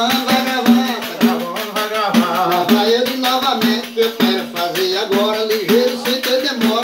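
Two pandeiros, Brazilian frame drums with metal jingles, beaten in a fast, steady embolada rhythm, with a man's voice singing over them.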